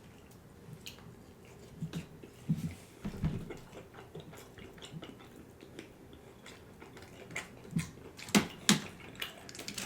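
Close-up chewing and mouth sounds of a person eating KFC fried chicken: scattered short clicks and soft smacks, with a couple of sharper, louder smacks about eight and a half seconds in.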